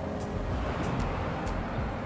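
Background music with a regular beat over a low rumble.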